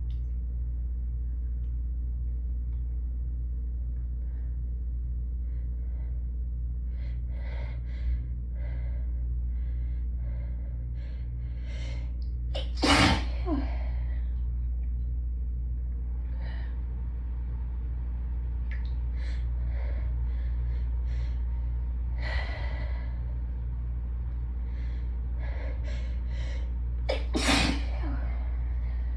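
A person sneezing in a hayfever fit: a loud sneeze about halfway through, a lighter one a little later and another loud one near the end, with short sniffs and gasping breaths in between.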